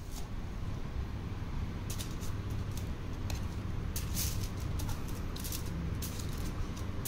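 Aluminium foil crinkling and rustling in short bursts as a tool scrapes melted candy across it, over a steady low rumble.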